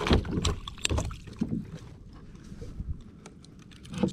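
Handling a landed fish and tethered gear on a plastic fishing kayak: scattered knocks and clicks, busiest in the first second, then quieter, with a single thump near the end.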